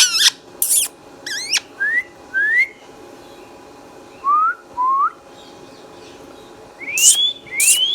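Indian ringneck parrot giving a series of short whistles that sweep upward in pitch, about eight in all, with gaps between them. A harsh screech is mixed in about a second in and again near the end.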